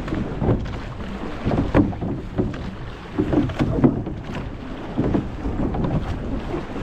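Wind buffeting the microphone over water rushing past a rowing boat under way, with irregular knocks from the boat.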